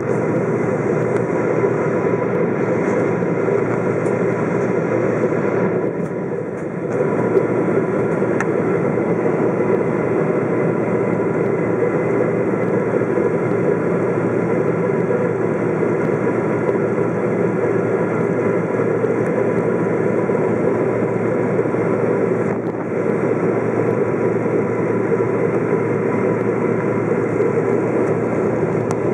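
Cabin noise inside a Boeing 777-200 on approach: a steady drone of engine and airflow with faint steady tones over it, dipping briefly twice.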